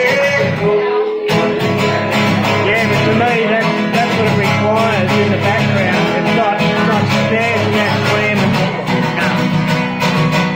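Acoustic guitar strummed live, with a man singing over it.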